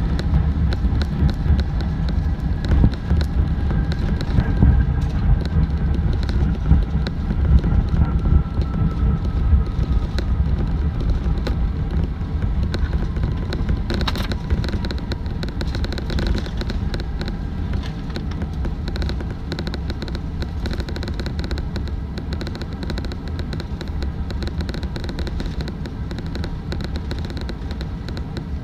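Cabin noise of an Airbus A380 rolling out on the runway after touchdown: a heavy low rumble with frequent rattles, an engine whine falling slowly in pitch over the first ten seconds or so, and one sharp knock about halfway. The whole sound slowly eases as the jet decelerates.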